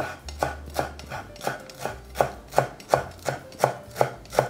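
Kitchen knife chopping fresh dill on a wooden cutting board: the blade knocks on the board in an even rhythm of about three strokes a second.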